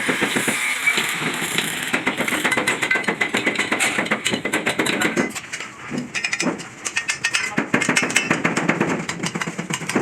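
Metal being hammered: many quick, irregular blows, with voices in the background.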